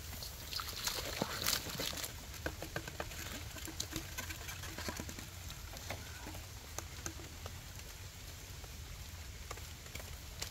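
Rain pattering, with scattered drops ticking irregularly on nearby surfaces over a faint steady hiss.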